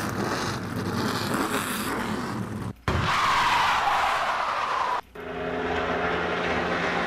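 Recorded vehicle sound effects for speeding and braking, played one after another with brief silences between them: a rushing stretch of vehicle noise, a tire screech falling in pitch about three seconds in, and a steady engine tone from about five seconds in.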